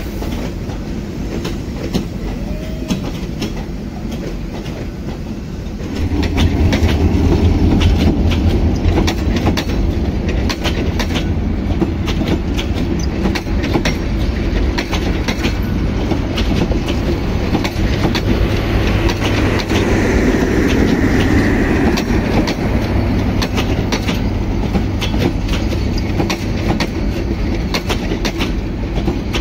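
Bangladesh Railway intercity passenger coaches rolling past close by: a steady low rumble of wheels on rail, with rapid clickety-clack as the wheels cross rail joints. About six seconds in the sound grows louder as the shot changes to another passing train.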